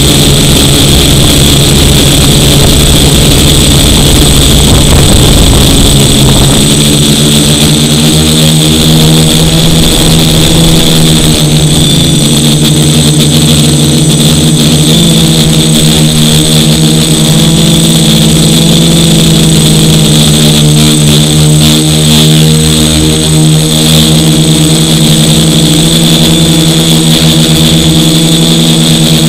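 Brushless motors and propellers of a DJI F450 quadcopter in flight, heard from a camera fixed on its frame: a loud, steady buzzing hum whose pitch drifts slightly up and down as the throttle changes. A heavy low rumble sits under it for the first seven seconds or so.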